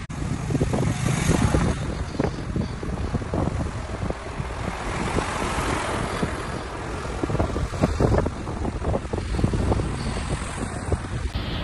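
Motor vehicle engines and road noise, steady throughout, with wind buffeting the microphone.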